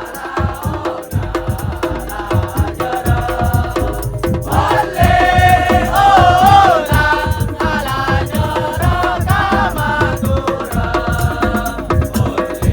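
Madurese tong-tong (musik tongtong) ensemble playing: drums and wooden slit-drums keep a steady rhythm under a melody with a wavering pitch that swells loudest around the middle.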